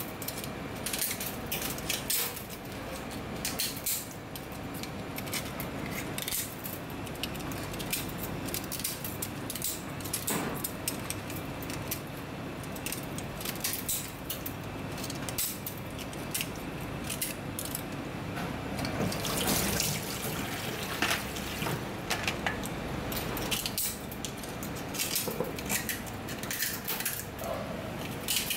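Steel kitchen shears clicking and scraping against the rough shell of a raw oyster as it is cleaned over a stainless steel sink. There are irregular sharp clicks of metal on shell and chips ticking into the sink, over a steady background hiss.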